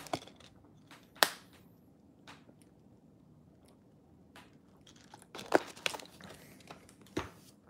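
A few sharp crackles and clicks from a plastic water bottle being handled while someone takes a sip of water. The loudest comes about a second in, with two more near the end.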